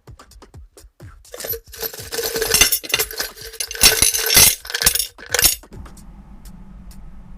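Small hard pieces clinking and rattling together in a dense clatter for several seconds, then stopping; a steady low hum continues after about six seconds in.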